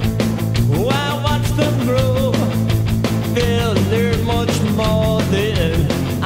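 Loud, fast rock music with a driving beat and a melody line bending above it, in a punk-rock style.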